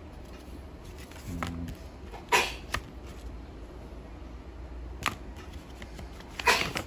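Paper rustling and crinkling as a printed warranty card and an instruction booklet are handled and laid down, a few short sharp crackles over a steady low hum.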